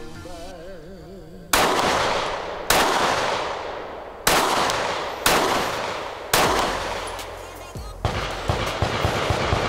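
Five pistol shots from a Springfield Armory XD-M Elite 3.8 handgun, fired about a second apart, each trailing off over roughly a second.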